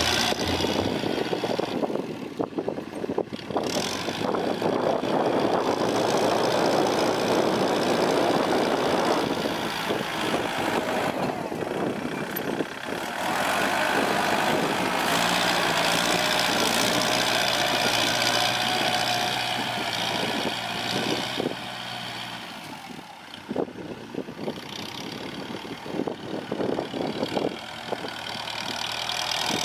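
Diesel engines of heavy earthmoving machinery running steadily, with scattered knocks in the second half.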